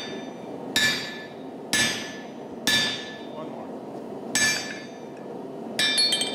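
Sledgehammer striking a handled punch held on red-hot iron on an anvil, driving the eye hole of a hammerhead. There are five loud ringing metallic clangs about a second apart, with a longer pause before the fourth, and a quick cluster of clinks near the end.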